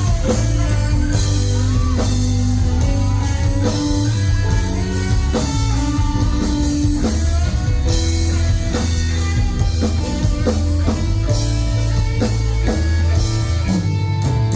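Rock band playing an instrumental passage without singing: electric guitar lines over steady bass and a drum kit.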